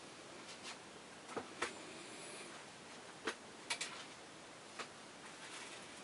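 Quiet room tone broken by a handful of faint, irregular small clicks, two close together about a second and a half in and a quick pair near the middle.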